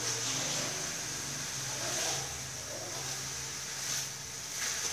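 Glass noodles and vegetables sizzling in a wok as they are turned with metal tongs and a spatula, with a few light scrapes of metal on the pan. A steady low hum runs underneath.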